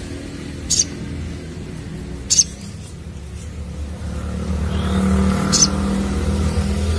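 Crimson sunbird (sogon) giving three short, sharp high-pitched chips, spaced about one to three seconds apart. Under them runs a low engine drone that swells louder in the second half, like a passing vehicle.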